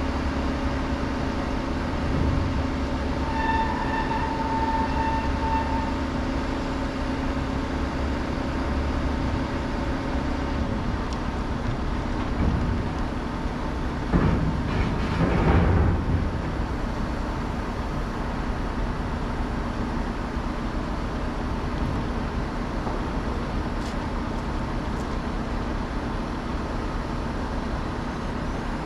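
Steady diesel truck engine rumble while a crane truck's boom hoists a steel ramp frame off a trailer. A few metal clanks come about halfway through, as the steel lifts and shifts.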